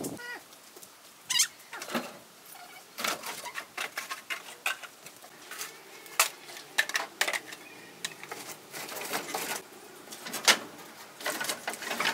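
Irregular clanks, knocks and scrapes of the rusty sheet-metal hopper of a small grain crusher being handled and moved about.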